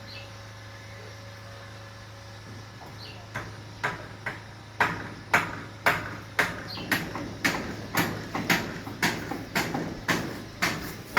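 Hammering: a run of sharp, evenly spaced blows about two a second, starting faint about three seconds in and growing louder, over a steady low hum.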